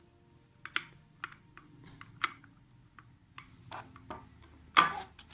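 Irregular light clicks and knocks of plastic parts and packaging being handled and moved about while searching through a box, with a louder knock near the end.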